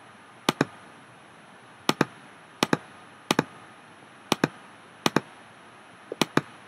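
Computer mouse button clicking: seven sharp double clicks, each a quick pair, about a second apart, the last one a triple.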